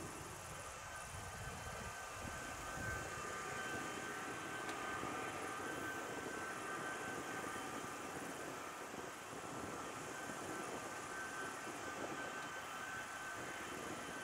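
Boeing C-32A (757-200) jet engines running at taxi power: a steady roar with a few held whining tones.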